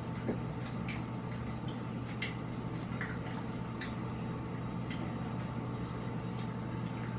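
Scattered light clicks and ticks of a meal being eaten at a table, at irregular intervals, over a steady low hum.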